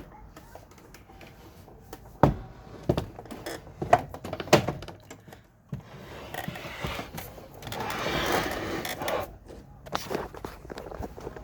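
Four sharp thunks and knocks, then a scraping rub lasting a few seconds, from a window air conditioner and its window being handled.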